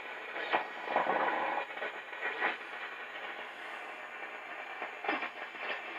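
A 1940 Philco 40-180 tube console radio on its shortwave band, tuned across the dial: static and hiss from its speaker, with brief snatches of station audio sliding in and out about a second in, after two seconds, and again near the end.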